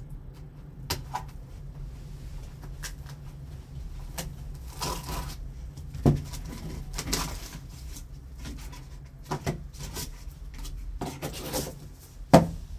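Hard plastic card cases being lifted from a foam-lined box and set down: scattered clicks and knocks with brief rustling, the loudest knocks about six seconds in and just before the end.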